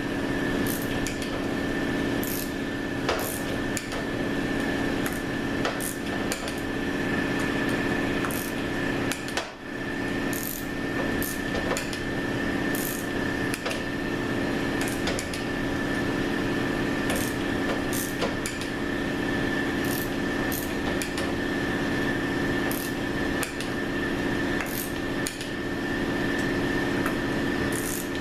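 Hand ratchet-type torque wrench working the 904 valve body bolts down to about 70 inch-pounds: many short, sharp clicks at irregular intervals from the ratchet and wrench. A steady hum runs underneath.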